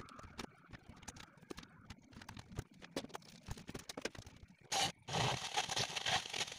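Plastic casing of an old compo cassette radio being handled and fitted together, with scattered light clicks and knocks. About five seconds in, a loud, even rushing noise starts abruptly.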